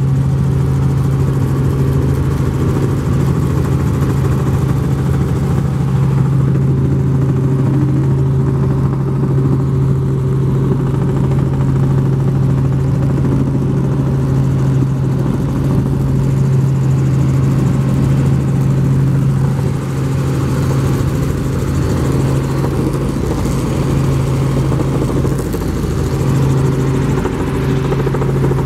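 Helicopter in flight heard from inside the cabin: engine and rotors running steadily and loudly, with a strong low hum that holds one pitch throughout.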